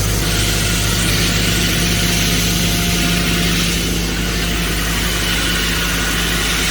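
Excavator engine running steadily while driving its hydraulic rock core drill during boring, with an even hiss over the engine's low hum.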